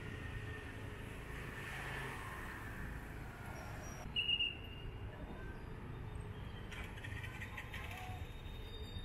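City street ambience: a steady low rumble of traffic, with one short high-pitched tone about four seconds in.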